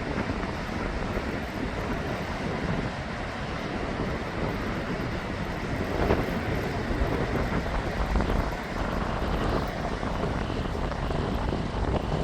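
Strong wind blowing over the microphone: a steady rushing noise with gusts swelling louder about halfway through.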